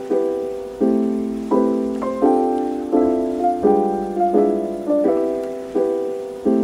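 Background piano music: soft chords struck at an even pace, about one every three-quarters of a second, each fading before the next.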